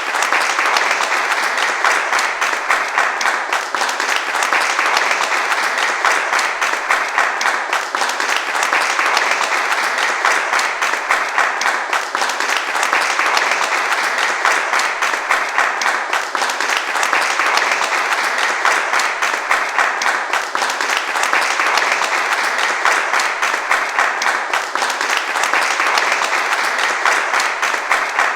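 Large crowd applauding steadily, many hands clapping at once in a dense, unbroken mass.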